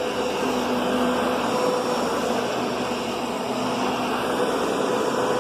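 Kenmore Progressive vacuum cleaner running steadily: a constant rushing hum with a faint steady tone underneath.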